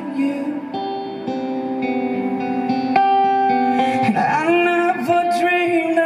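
Live acoustic band music. Acoustic guitar notes ring on for the first few seconds, then a male voice comes back in singing a sliding line at about four seconds.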